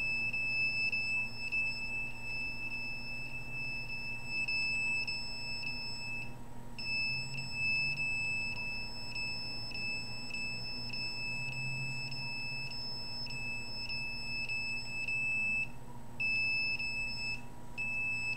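Handheld EMF meter sounding its alarm: a steady high-pitched beep tone, cut by a brief gap about six seconds in and twice more near the end.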